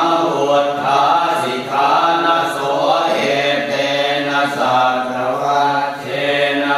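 Thai Buddhist chanting (suat mon): voices reciting continuously in a level, drone-like chant on a steady low pitch.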